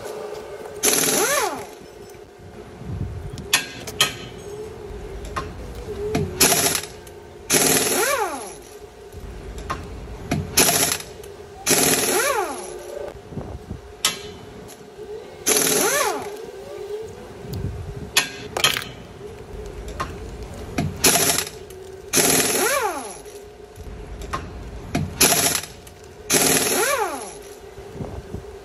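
Boom Racing BRX01 1/10 scale RC crawler driving in short bursts: about a dozen rattling spurts of the electric motor and drivetrain, each followed by a whine that falls in pitch as it slows.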